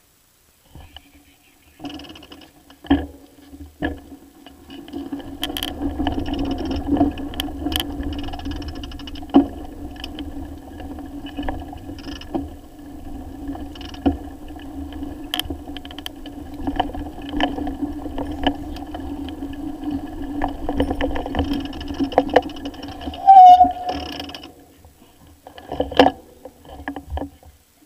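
Bicycle ridden over a bumpy grass track, heard from a camera mounted on its handlebar: a steady hum with frequent rattles and knocks from the rough ground. The hum starts about two seconds in and stops near the end after a short, loud squeal as the bike halts, followed by a couple of knocks.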